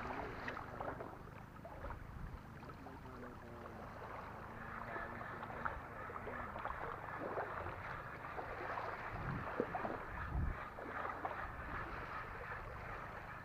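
Faint shoreline sound: small waves lapping on a pebble beach, with scattered small clicks and light wind on the microphone.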